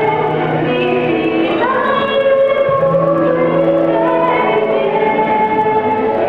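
Music: singing with keyboard accompaniment, voices holding long notes over steady sustained bass notes. The bass note changes about halfway through.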